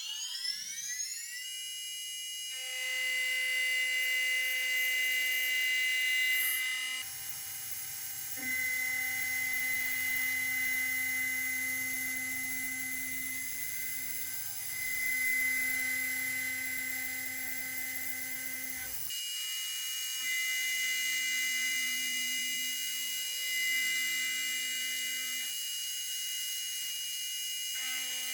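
Hobby CNC router spindle milling aluminium, a steady high-pitched whine. It spins up in rising pitch at the start, then holds steady, with abrupt changes in the cutting sound about 7 and 19 seconds in.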